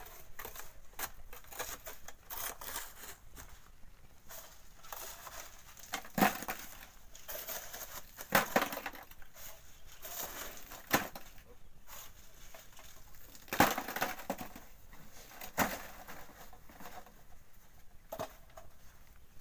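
Steel shovel scraping and digging into wet sand and gravel, its loads of sand and stones thrown onto a wire sieve over a wheelbarrow. It comes as irregular sharp scrapes and gritty thuds, the loudest a couple of seconds apart.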